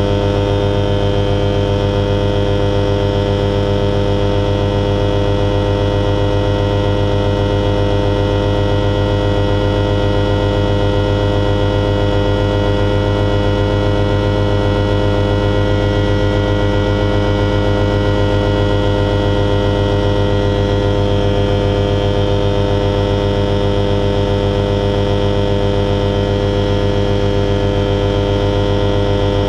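Alisport Silent-in motorglider's self-launch engine and propeller heard from the cockpit, running at steady power in the climb. A loud, even drone that holds one pitch throughout.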